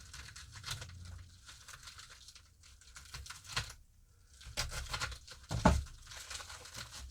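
Packaging crinkling and tearing as a parcel is opened by hand, with scattered small clicks and one sharper, louder crack a little over five and a half seconds in.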